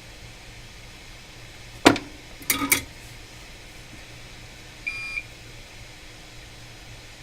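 Clicks of tools handled on a repair bench: one sharp click about two seconds in, then a quick run of three or four clicks. A little later comes a single short electronic beep, about a third of a second long.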